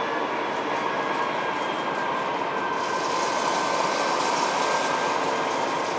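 DB class 218 diesel-hydraulic locomotive running steadily while it stands at the platform, its engine noise carrying several high whining tones. A hiss comes in about halfway through.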